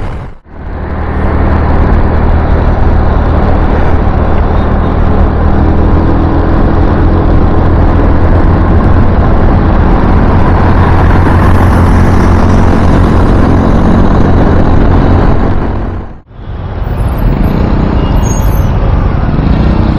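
Single-cylinder engine of a TVS Jupiter scooter running at a steady cruising speed: a steady low engine hum under loud, even rushing wind and road noise. The sound drops out abruptly near the start and again about 16 seconds in, fading back each time within a second.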